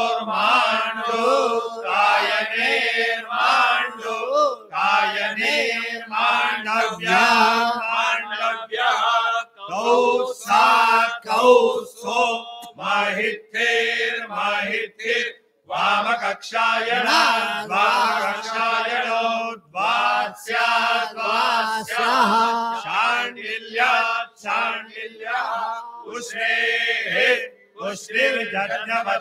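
Group of men chanting Vedic Sanskrit mantras together: a steady recitation in phrases on a narrow range of pitches, broken by short pauses for breath.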